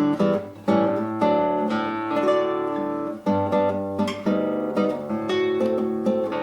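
Solo classical guitar playing a run of plucked melody notes over bass notes, with a short break in the sound about half a second in.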